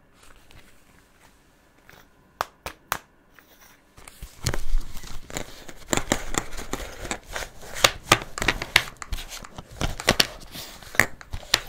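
Clear plastic packaging of a set of jumbo felt-tip markers crinkling as it is handled and opened, with the markers knocking together as they slide out. A few light clicks at first, then steady crinkling and rattling from about four seconds in.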